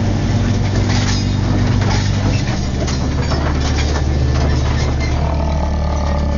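Cab noise inside a moving military vehicle: a steady, loud engine and drivetrain drone with rattling from the cab. The engine note shifts about two and a half seconds in.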